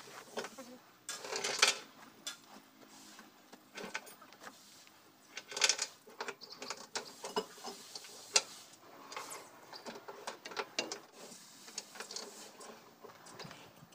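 Irregular metal clinks and rattles from hand work inside the open tandem drive housing of a Komatsu GD511A motor grader while its drive chain is being installed. Louder knocks come about a second and a half, six and eight seconds in.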